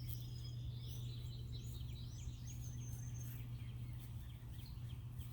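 Small birds chirping and calling in the background: many short high chirps, with a held thin whistle in the middle, over a steady low hum.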